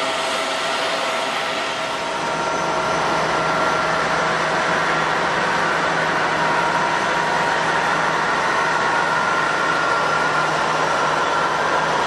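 Jet airliner engines running: a steady rush with a held high whine, growing a little louder and deeper about two and a half seconds in.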